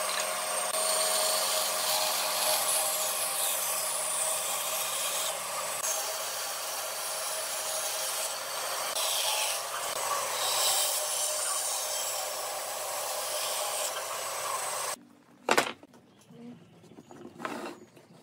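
Band saw running and cutting through a wooden board: a steady motor hum and whine with the hiss of the blade in the wood, which stops abruptly near the end. Then a couple of sharp knocks of wooden pieces set down on a workbench.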